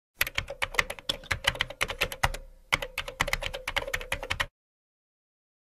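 Keyboard typing sound effect: a fast run of key clicks with a short pause about halfway through, cutting off abruptly about four and a half seconds in.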